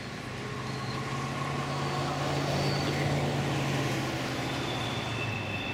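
A passing vehicle with a steady low hum that grows louder toward the middle and then fades, with faint high-pitched squeals near the end.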